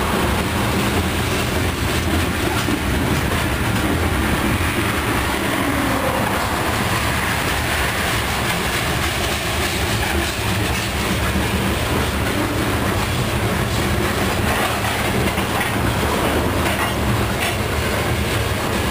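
Covered hopper cars of a freight train rolling past close by: steady, unbroken noise of steel wheels running on the rails.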